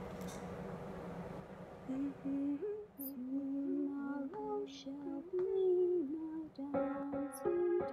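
Soft rustling, then a woman humming a slow melody note by note. Piano chords come in near the end.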